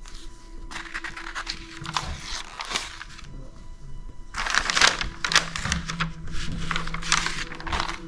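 Stiff pages of an old photo album rustling and crackling as they are handled and turned, in two spells, the second louder, over faint steady background music.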